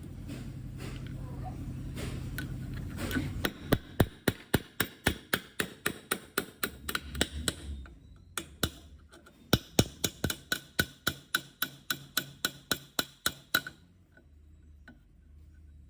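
A low steady hum, then quick, even knocks of a hard object being struck, about three a second, in two runs with a short break about eight seconds in; the knocks stop sharply about a second and a half before the end.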